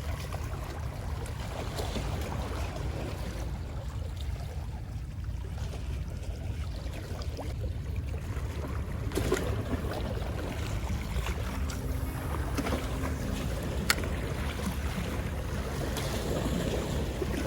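Wind buffeting the microphone over the wash of sea waves against shore rocks, a steady low rumble; a single sharp click about three-quarters of the way through.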